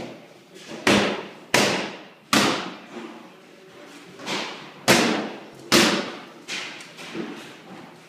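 Footsteps on a bare wooden floor in an empty, echoing room: about eight hard heel strikes at a walking pace, with a short pause partway through.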